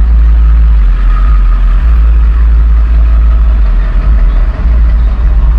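Vehicle engines in slow-moving traffic, heard from inside a car as a loud, steady low rumble that dips briefly a couple of times.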